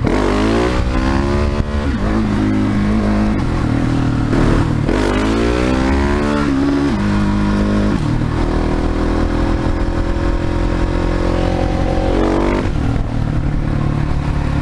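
Husqvarna 701 Supermoto's single-cylinder four-stroke engine accelerating up through the gears. The pitch climbs and drops back at each upshift, holds steady while cruising, then climbs and drops once more near the end.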